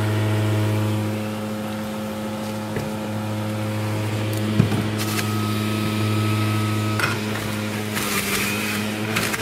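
Breville Juice Fountain Elite centrifugal juicer running with a steady motor hum, with a few brief harsher bursts of noise as produce is pushed down the feed chute and shredded.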